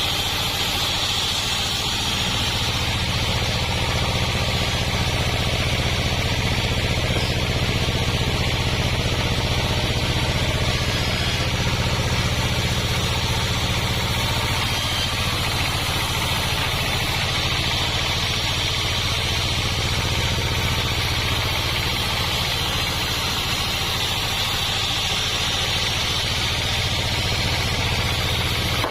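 Homemade sawmill running steadily, its engine and saw making an unbroken drone with a high whine above it.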